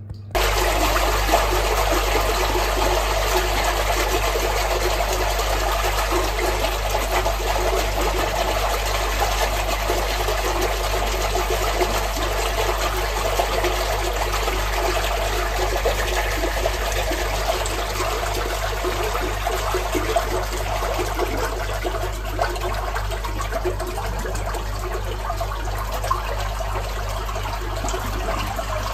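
Sewage gushing through a manhole's channel as a drain blockage clears, a steady rush of water that cuts in abruptly at the start and eases slightly toward the end.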